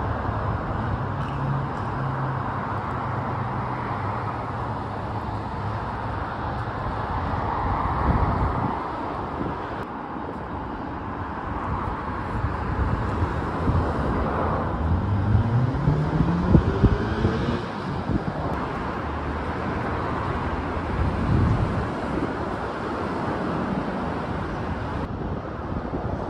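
Outdoor road traffic with wind on the microphone. About halfway through, a vehicle speeds up with a rising whine.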